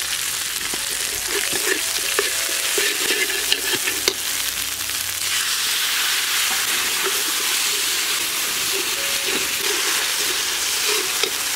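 Ground spice pastes and turmeric sizzling steadily as they fry in a pan, with the intermittent scrape of stirring.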